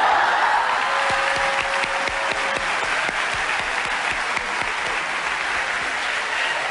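Studio audience applauding, a dense, steady clapping that breaks out suddenly just before and keeps up at full strength.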